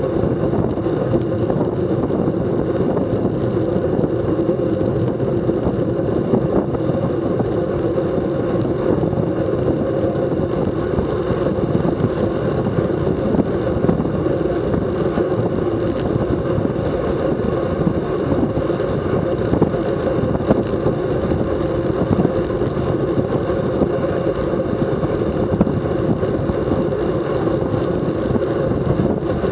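Steady wind noise buffeting the microphone of a bike-mounted camera on a road bicycle riding at racing speed, with road noise underneath.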